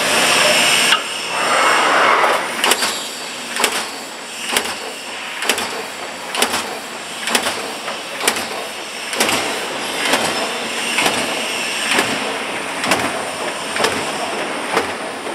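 Vacuum forming line for plastic food containers running: steady machine noise with a sharp clack repeating about once a second, and a rush of air noise in the first couple of seconds.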